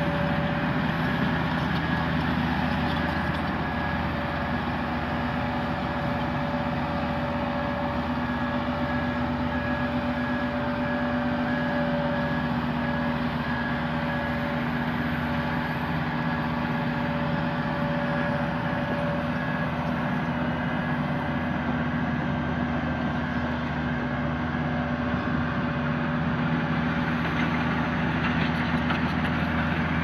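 Diesel engine of a Hamm 311D padfoot vibratory roller running steadily under light load as it works across loose soil, a continuous engine note with a few held tones.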